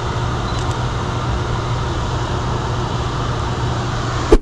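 Rushing stream water running loud and steady close to the microphone, with a single sharp knock near the end just as the sound cuts off.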